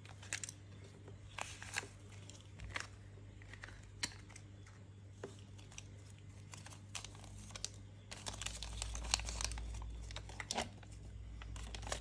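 Thin plastic and paper packaging of a Kinder Joy toy crinkling and tearing as it is unwrapped and its paper leaflet is unfolded, with scattered sharp crackles and small clicks of handling. A low rumble joins in for the last few seconds.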